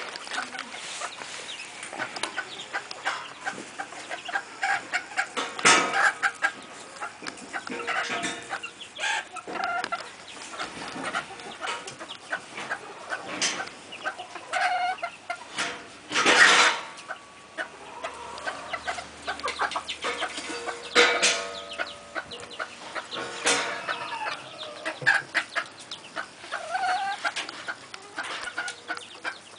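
Domestic chickens clucking, hens among their newly hatched chicks, with many short calls and a few louder ones, the loudest about halfway through.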